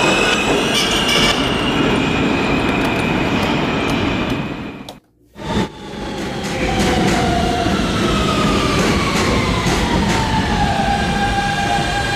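Subway train running, with a rumble, scattered clicks and an electric motor whine. The sound drops out briefly about five seconds in; when it returns, the whine falls steadily in pitch, as a train does when slowing.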